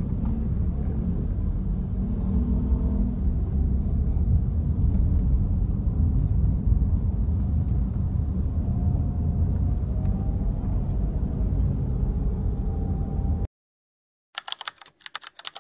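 Steady low rumble of ambient noise, with faint higher tones drifting through it. It cuts off suddenly near the end, and a brief burst of clicks follows.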